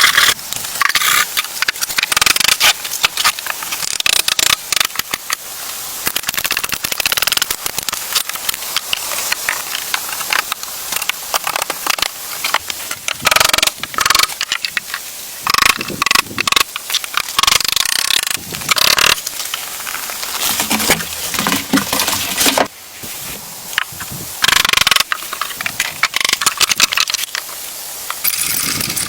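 Irregular rustling, crackling and knocking, as of wood and branches being handled, with many quick clicks close together and short louder clattering spells.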